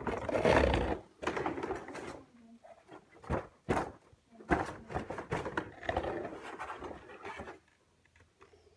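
Cardboard box and plastic packaging being opened and handled: bursts of rustling and scraping with several sharp taps and knocks, dying away near the end.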